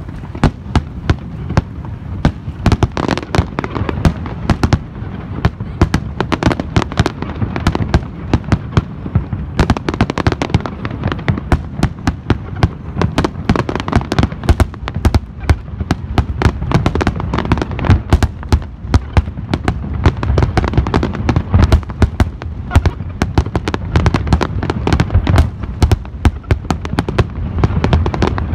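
Fireworks display at full intensity: a rapid, unbroken barrage of aerial shell bursts and crackling, many bangs a second over a low rumble.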